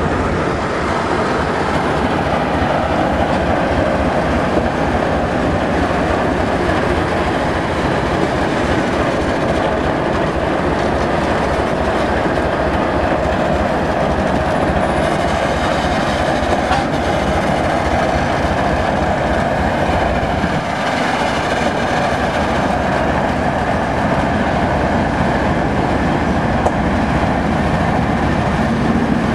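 Two Soviet-built diesel shunting locomotives, a TEM15 and a TEM2, coupled together with their diesel engines running steadily and loudly. Their wheels clack on the rails as they move along the track.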